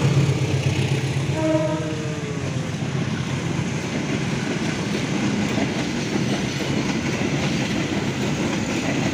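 Passenger train coaches rolling past close by: a steady rumble of steel wheels on the rails with rapid clicking over the joints. It follows the diesel locomotive's low drone, which fades within the first second or so.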